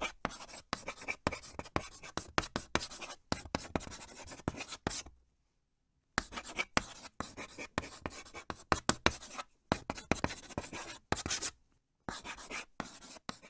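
Many short, irregular scratching strokes in quick succession, with a pause of about a second partway through, played as a sound meant to set teeth on edge.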